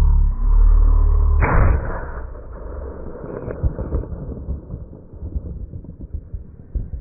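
A single sharp shot about a second and a half in, dying away over about a second, after a heavy low rumble. Faint crackling and rustling follow.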